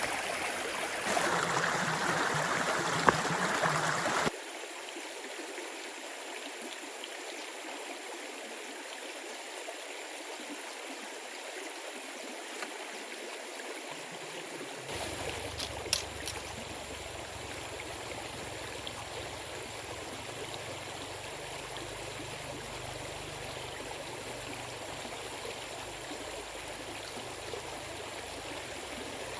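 Stream water running steadily, louder and closer for the first four seconds, with a few light clicks about halfway through.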